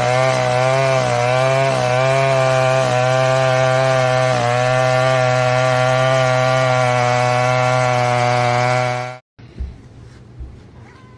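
Loud, steady chainsaw-like motor drone with a fixed pitch that wavers slightly now and then, cutting off suddenly about nine seconds in.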